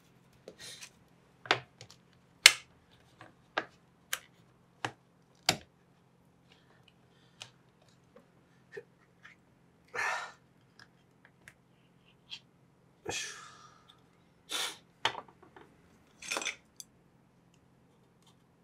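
A flat pull-ring tin handled on a wooden cutting board: a run of sharp clicks and knocks, then several short rasping scrapes as its ring-pull lid is pried and peeled open.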